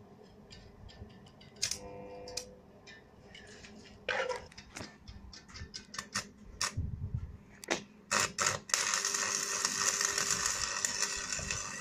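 Stick (arc) welding on steel: a scattering of sharp clicks and taps as the electrode is struck against the work, then about nine seconds in the arc catches and crackles steadily and loudly.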